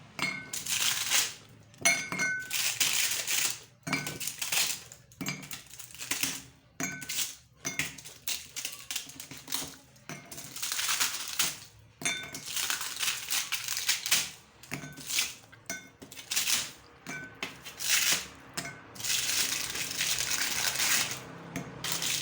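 Freshly baked cookies being moved from the baking tray into a bowl: repeated clatter and clinking of cookies and a utensil against tray and bowl, in short bursts with a few longer scraping stretches.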